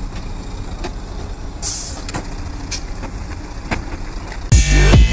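Three-axle dump truck's diesel engine running at low speed, with occasional clicks and a short hiss of air about a second and a half in. Loud electronic music cuts in about four and a half seconds in.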